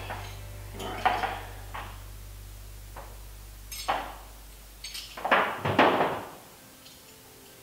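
Small hardware being handled while a light pod and its mounting bracket are assembled by hand: scattered clicks and knocks of bolts, washers and parts, the loudest two about five and six seconds in. A low steady hum under it fades out a little past halfway.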